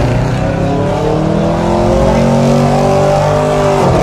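Loud car engine revving, its pitch climbing slowly and then dropping near the end.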